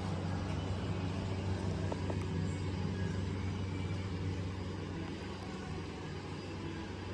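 1940 International TD6 crawler's diesel engine running at a steady speed.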